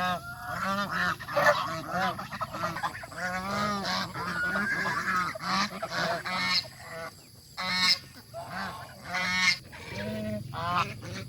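A flock of domestic geese honking and calling, many short overlapping honks with no break.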